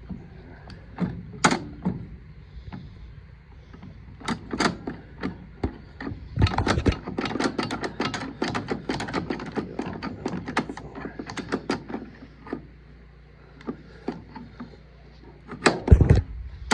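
Metal parts and hand tools clinking and knocking while a baler knotter is being taken apart. A dense run of rapid clicks and rattles in the middle, and a heavy thump near the end.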